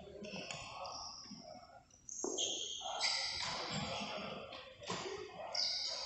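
Badminton play on a court: a sharp racket-on-shuttlecock hit about two seconds in, and short high-pitched squeaks of shoes on the court floor.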